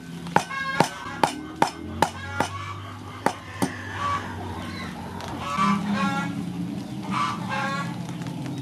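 Cleaver chopping a hard green Ferroniella lucida fruit on a wooden chopping block, about two sharp knocks a second for the first three to four seconds. After the chopping stops, poultry call repeatedly in the background.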